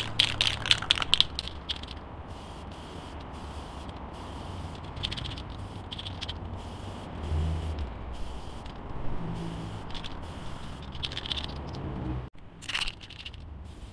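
Aerosol spray-paint can being shaken, its mixing ball rattling in quick clicks for about the first second and a half. Then a few short hisses of spraying, with silver undercoat going onto the fork legs.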